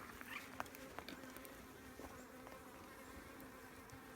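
Honeybees from an open hive humming steadily and faintly, with a few light clicks in the first two seconds.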